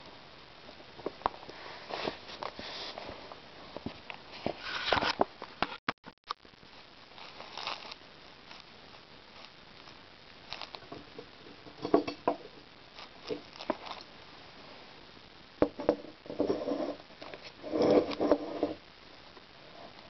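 Hands handling an old string-bound book on a wooden tabletop: irregular rubbing, scraping and soft taps, with two louder scraping bursts near the end.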